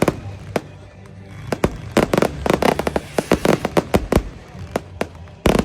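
Fireworks going off in a rapid barrage of sharp bangs and crackles, many a second, easing off briefly about a second in and then building again, with a heavy loud burst near the end. Music plays underneath.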